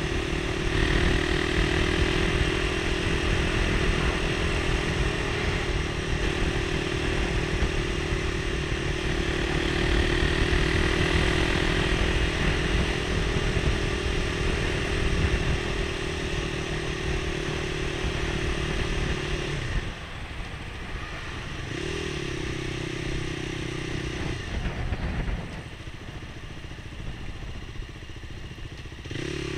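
Motorcycle engine running steadily while riding at speed, heard from the bike itself. About two-thirds of the way through it drops away as the bike slows, rises briefly once, then runs quieter until it picks up again at the very end.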